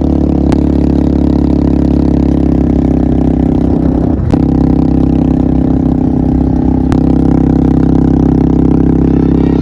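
Four-wheeler (ATV) engine running at a steady speed, with a few short knocks or clunks over it.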